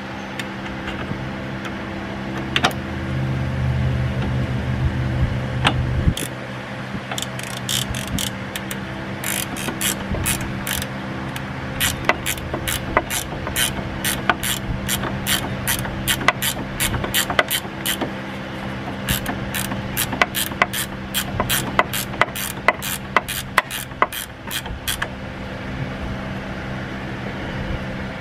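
17 mm ratcheting box-end wrench clicking in runs of quick strokes, several clicks a second, as it turns the nut of a strut's stabilizer link onto its stud while the stud is held with a 6 mm hex key.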